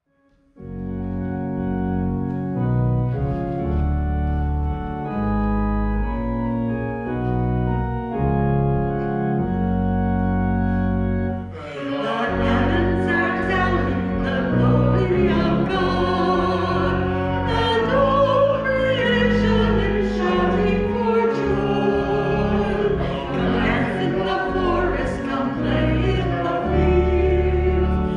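Church organ playing a hymn introduction in slow, held chords with a deep bass. About twelve seconds in, singing voices join the organ in the closing hymn that ends the Mass.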